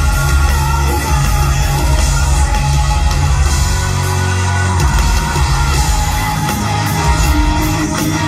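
A metal band playing loud and live, with distorted electric guitars, bass and drums together in a steady, dense wall of sound.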